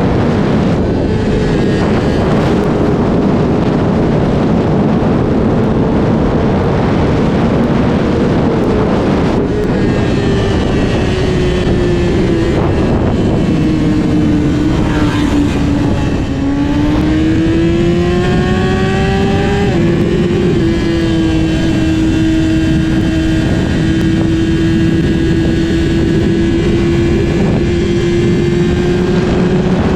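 Sport motorcycle engine running at steady revs while riding, with a dense rush of noise beneath it. About halfway through the engine note drops, then picks up again and holds steady.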